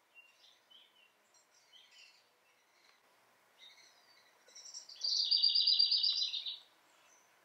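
Small birds chirping on a bird video played through a television: scattered faint chirps, then about five seconds in a loud, rapid trill of about eight notes a second that lasts about a second and a half.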